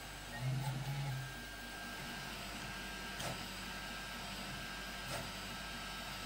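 HyperCube CoreXY 3D printer running a print: a steady mechanical whir as the print head moves, with a louder low stepper-motor tone for about a second near the start and two faint ticks later on.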